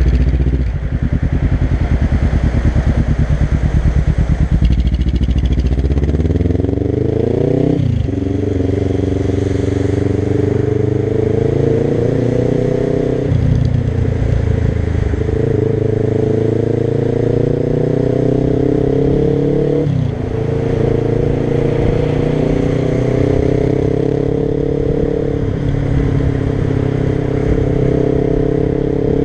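Suzuki GS500's air-cooled parallel-twin engine through a Dominator GP1 aftermarket exhaust. It runs low and lumpy for the first several seconds, then revs up as the bike accelerates, and the pitch drops sharply at upshifts about 8, 13 and 20 seconds in before it climbs again in each gear.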